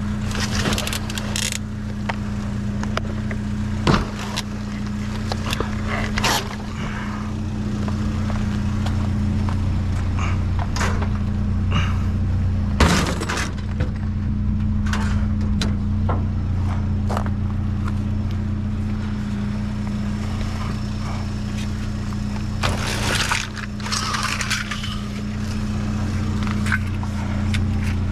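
Junk being moved about in a dumpster: scattered knocks, clatters and scrapes, the sharpest about 13 s in and a cluster near 23 s. A steady engine hum runs underneath.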